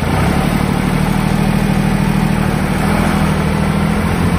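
Kubota M1-55 tractor's three-cylinder diesel engine running steadily as the tractor pulls away in gear, heard from the driver's seat; it gets louder right at the start and then holds steady.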